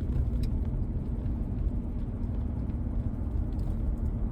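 Steady low rumble of a vehicle's engine and tyres while driving.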